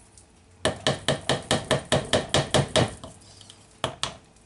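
Spatula knocking against the side of a ceramic mixing bowl of cake batter: a quick, even run of about a dozen sharp knocks, about five a second, then two more knocks near the end.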